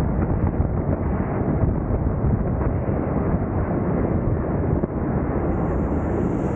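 Wind buffeting the microphone: a loud, steady rumble without pauses. A faint high hiss comes in near the end.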